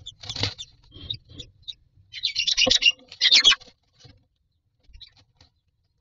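Newly hatched common myna chicks begging with thin, high chirps while the adult feeds them at the nest, rising to two loud raspy bursts about two and three seconds in, with a sharp knock between them and some low rustling in the nest straw.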